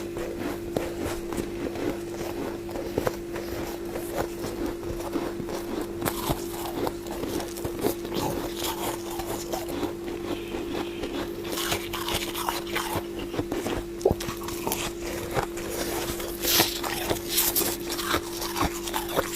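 Close crackling and crunching of freezer frost being scraped and bitten, a dense run of small irregular clicks with a few sharper cracks near the end. A steady hum runs underneath.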